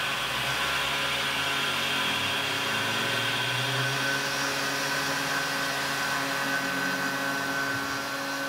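Tormach 770 CNC mill chamfering the edge of an aluminum part: the spindle runs at a steady whine over the even hiss of the cut.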